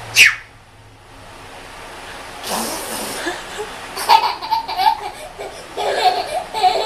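Baby belly-laughing in high-pitched bursts of giggles during the second half. Before that comes a short, sharp spitting puff at the very start and a breathy blowing burst about two and a half seconds in.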